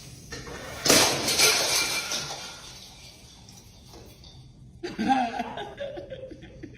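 A sudden crash about a second in, like something breaking or falling, with clattering that fades over the next second; a short voice-like cry follows near the end.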